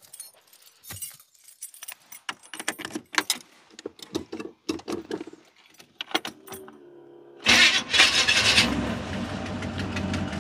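Clicks and rustling, then about seven and a half seconds in an old carbureted motorhome engine starts and revs, settling into a steady idle as it begins warming up.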